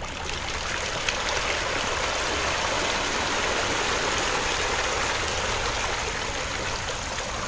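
A densely stocked pond of catfish thrashing at the surface, a steady mass of splashing water that builds over the first second or two.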